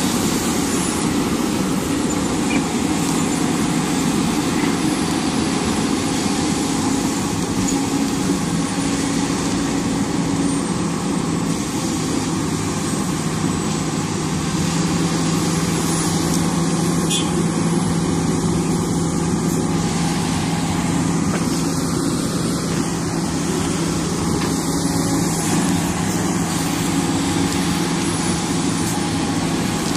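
Hidromek HMK300LC-3 crawler excavator's diesel engine running steadily under work load, a continuous low drone with a broad rushing noise over it and small shifts in pitch now and then.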